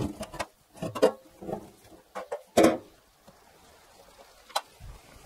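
Handling noise: a series of short knocks and clicks of objects being picked up and set down, loudest about two and a half seconds in, with a lone click near the end.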